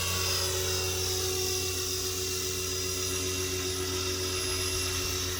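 Blade Fusion 480 electric RC helicopter in flight: a steady high whine from the motor and drivetrain over the low hum of the rotor, its pitch easing slightly lower over the first few seconds.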